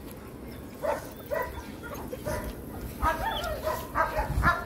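German shepherd puppies yipping: a string of about ten short, high-pitched yips, some wavering, coming closer together in the second half.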